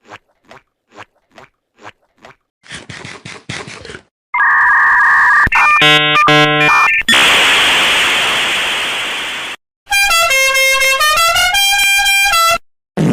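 A string of unrelated meme sound effects: evenly spaced ticks, about two a second, then a rapid flutter; a two-tone horn blast and a choppy, stuttering tone; a loud burst of hiss that slowly fades; then a fast electronic beeping tune that steps down and back up.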